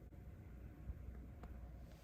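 Nearly silent, with a low hum and a couple of faint short clicks, as of hands handling computer parts while wiring.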